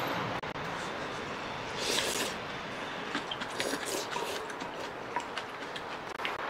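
Eating sounds from bowls of beef-and-radish soup: a short slurp from a spoon about two seconds in, then small clicks of spoons and chopsticks against ceramic bowls and soft chewing.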